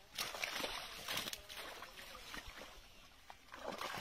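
Water sloshing and splashing as a fishing net is hauled through shallow river water, in uneven surges that are loudest in the first second or so and again near the end.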